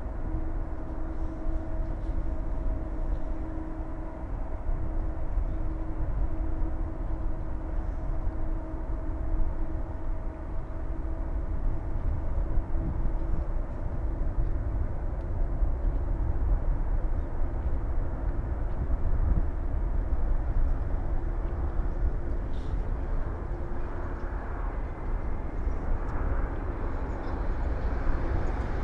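Jet airliners taxiing at idle thrust, heard as a steady engine hum with a low whining tone over a low rumble. The whine fades out near the end.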